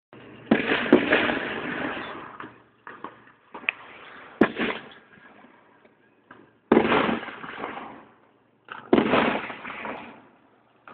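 Aerial fireworks bursting: a series of sudden bangs, each fading away over a second or two, with smaller pops in between. The loudest come about half a second in and again near seven and nine seconds.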